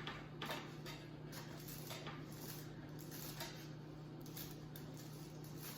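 Faint, scattered clicks and light scrapes of a spoon against plates, over a steady low hum.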